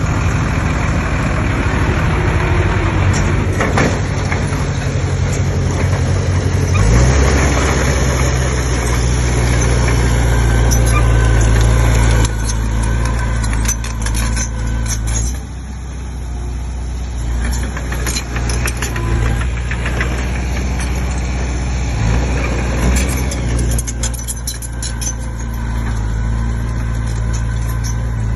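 Diesel engine of a crawler bulldozer working. Its note grows louder and heavier about seven seconds in, then eases off around fifteen seconds, with scattered knocks throughout.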